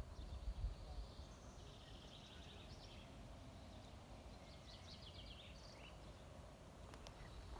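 Quiet open-air ambience with faint birdsong: two short, fast trilled phrases from birds in the surrounding trees. Wind buffets the microphone in the first second.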